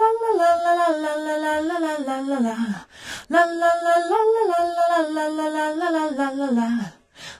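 An unaccompanied chorus backing vocal sample plays back through a stereo delay. One side is offset by 25 milliseconds to widen the mono vocal into stereo. The same sung phrase is heard twice: each holds a note, rises briefly, then slides down at the end, with a short break between the two.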